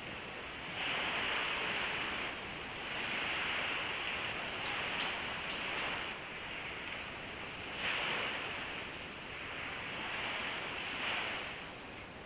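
Small waves washing up on a sandy beach, each wash swelling and fading every two to three seconds, with a light wind.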